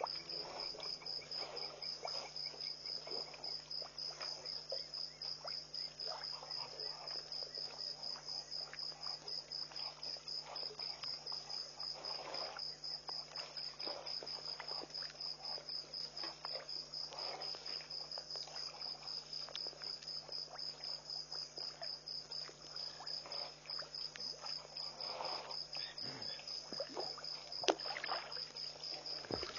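Crickets chirping in a steady, high, rapidly pulsing trill, over a faint low hum. Soft, irregular water sounds come from elephants drinking at the water's edge.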